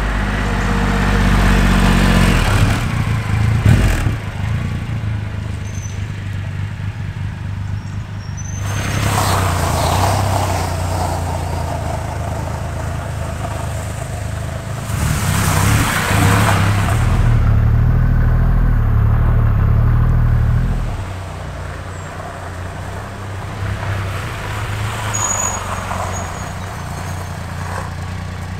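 Triumph Rocket 3 R's 2.5-litre three-cylinder engine running as the motorcycle rides slowly up the drive and across the gravel, with louder swells about 9 and 15 seconds in and a drop in level about 21 seconds in.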